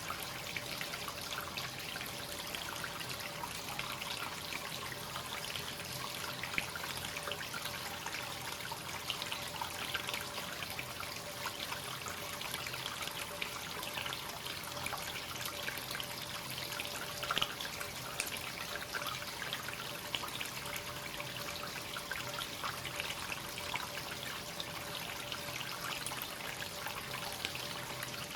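Free-flowing hot spring water running continuously into a bath, a steady even flow of water.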